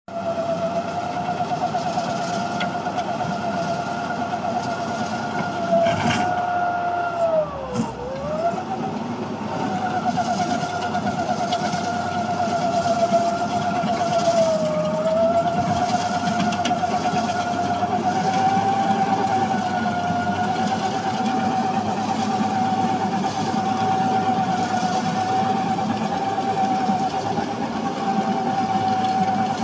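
TAGRM M3000 crawler windrow compost turner (130 hp) running as it works through a compost windrow: a steady mechanical whine over the churning of the rotor through the material. The pitch sags sharply about seven seconds in and briefly again around fifteen seconds, as the machine comes under heavier load, then recovers.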